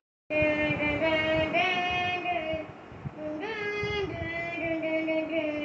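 A high voice singing a slow melody in long held notes that step up and down in pitch.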